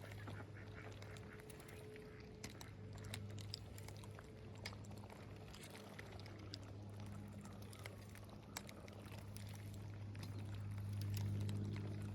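Ducks quacking faintly on the water, over a low steady hum and a few small clicks.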